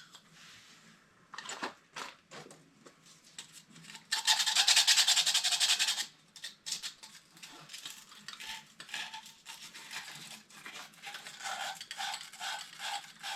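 Abrasive cleaning of a new copper pipe end before joining: a loud, fast scouring for about two seconds near the middle, with shorter scrapes and light taps before and after it.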